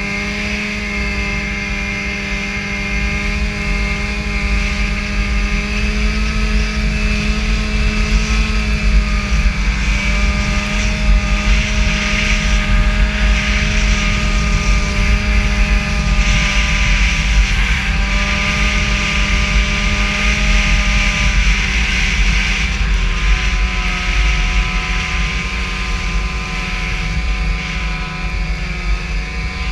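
Snowmobile engine running at a steady cruising speed, its pitch holding mostly even with small rises and dips and lifting near the end. A rushing hiss under it swells around the middle.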